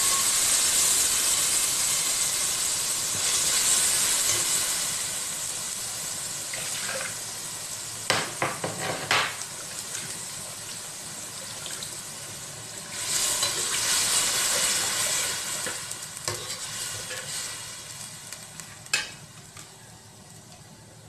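Wet garlic, ginger, tomato and dried-chilli paste sizzling in hot oil in an aluminium pan, loud at first and slowly dying down as the paste cooks. A metal spatula stirs it, scraping and knocking against the pan a few times around the middle and near the end.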